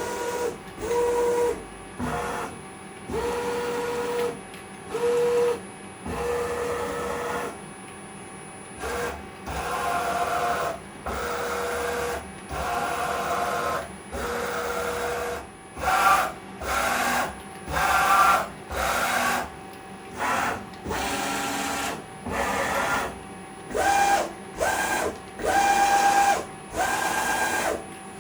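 The axis drive motors of a milling machine converted to CNC, making a series of short jog moves. Each move is a steady whine lasting about a second, starting and stopping abruptly, with the pitch changing from one move to the next as the feed speed changes. There is a short gap between moves.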